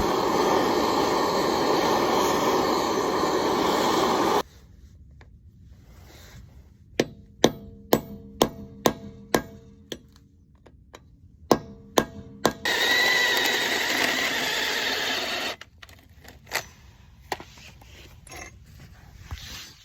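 Power drill spinning a hole saw that cuts into a broken steel wheel lug nut: one cutting run of about four seconds, then a series of sharp, ringing metal knocks, then a second, shorter cutting run with a steady motor whine.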